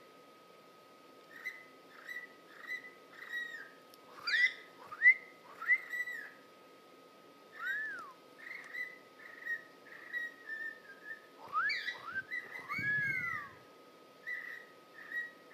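Cockatiel chirping and whistling: a run of short chirps and rising-then-falling whistled notes, with louder swooping whistles about four seconds in and again about twelve seconds in.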